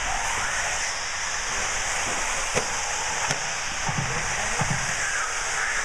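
Radio-controlled 1/8-scale off-road buggies running on an indoor dirt track: a steady high whirring hiss, with a couple of sharp clicks in the middle and two low thumps a little later.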